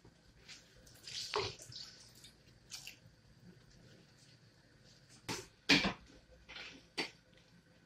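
Cooked pinto beans tipped from a plastic container into a pot of tomato-sauce base: wet plops and splashes with light clatters of the container, loudest around five to six seconds in.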